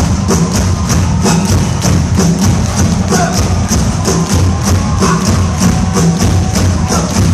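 Loud live rock band playing, with drums keeping a steady, fast beat of about four hits a second over heavy bass.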